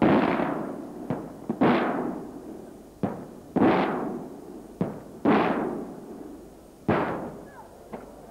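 Traditional Maltese aerial firework shells bursting overhead: about ten sharp bangs at irregular intervals, the louder ones each trailing off in a long rolling echo.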